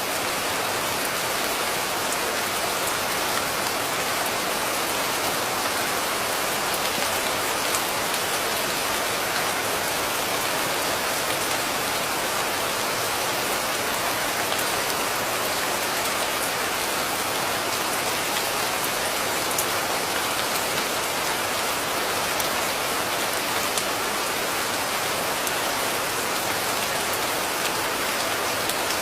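Steady rain falling, an even hiss of many drops with faint scattered patters and no thunder.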